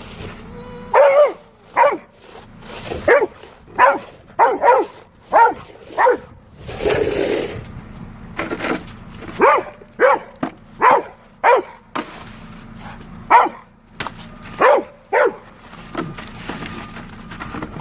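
A dog barking over and over, about eighteen short barks in quick runs, with a brief rushing noise about seven seconds in.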